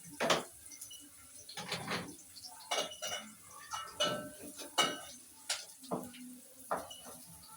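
A cooking utensil clinking and scraping against a pan as onions are stirred while they fry, in about ten irregular strokes.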